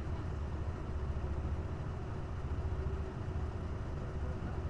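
Diesel engine of a Hino Blue Ribbon city bus (KC-HU2MMCA) running with a steady low rumble, heard from inside the passenger cabin.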